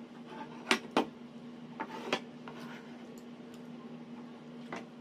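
Cutlery clicking against plates several times while eating: two sharp clicks about a second in, a few lighter ones soon after, another near the end, over a steady low hum.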